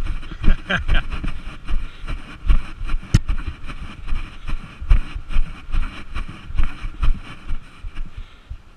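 A player's running footfalls thud about twice a second through a chest-worn action camera, with wind buffeting the microphone. A single sharp click comes about three seconds in.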